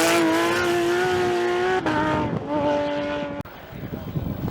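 Rally car engine held at high revs with a steady pitch, dropping in pitch twice in quick succession as it changes up, then cutting off abruptly about three and a half seconds in, leaving a rougher, quieter rumble.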